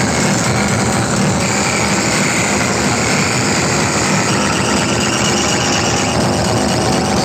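Truck-mounted DJ speaker stack playing at full volume, heard as a steady, dense, distorted roar rather than clear music.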